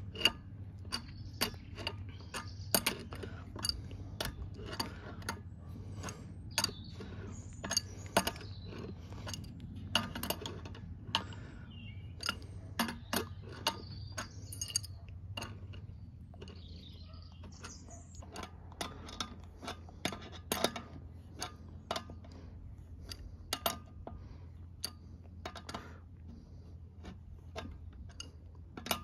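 Adjustable wrench clicking and clinking against stainless steel Swagelok tube nuts as they are tightened, in irregular sharp clicks about one or two a second.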